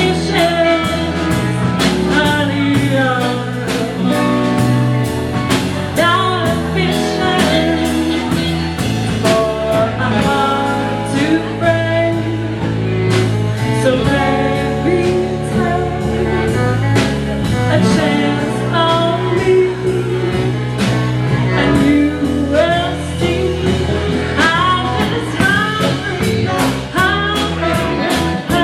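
A live band playing a blues-rock song, with a steady drum beat, bass and guitar throughout.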